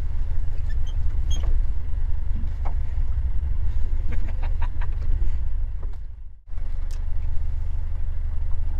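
Boat engine running steadily with a low rumble and a few faint clicks over it. The sound fades out about six seconds in and comes straight back.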